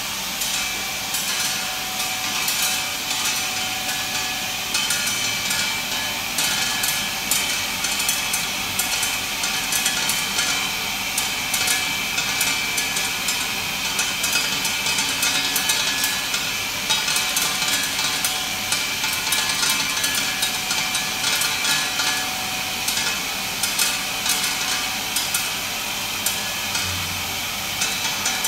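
Large flat tablets clattering steadily through a running tablet-processing machine: a rapid, continuous stream of sharp clicks and knocks over a steady machine hum.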